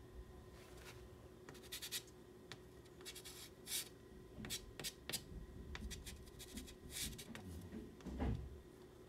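Soft pastel stick scratching and rubbing across paper in short, irregular strokes as color is laid in and worked into the paper. A dull low thump comes near the end.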